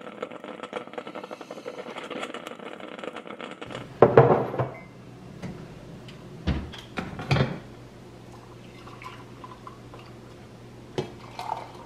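Drip coffee maker gurgling and sputtering steadily as it brews into its glass carafe. Then, about four seconds in, there is a loud clatter, followed by a couple of clunks as ceramic mugs are set on the countertop, faint pouring of coffee from the carafe into a mug, and a light clink or two near the end.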